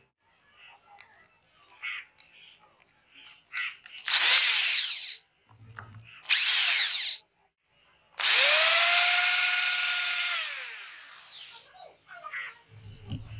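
Handheld power drill with a threaded rod in its chuck run three times: two short bursts, then a longer run of about three and a half seconds with a steady whine that winds down at the end. Faint small clicks of handling between the runs.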